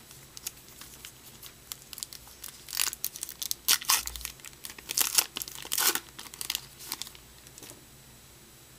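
A baseball card pack wrapper being torn open and crinkled by hand: a run of irregular crackles and tearing, loudest in the middle, dying away about a second before the end.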